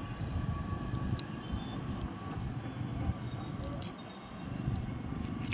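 Steady low rumble of outdoor background noise, with a few faint clicks from hands handling a large cardboard firework tube. No firework goes off.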